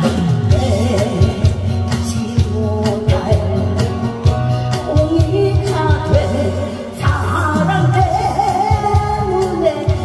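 Amplified singing over loud backing music with a steady bass and frequent drum strikes.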